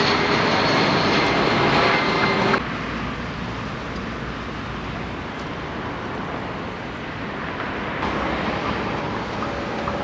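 Construction-site noise: a loud, steady mechanical din with engine hum that cuts off abruptly about two and a half seconds in, followed by a quieter, steady rumble of distant machinery and traffic.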